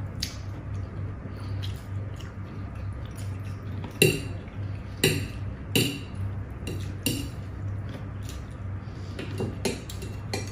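Metal forks clinking and scraping against ceramic plates while eating noodles, with several louder sharp clinks between about four and seven seconds in, over a steady low hum.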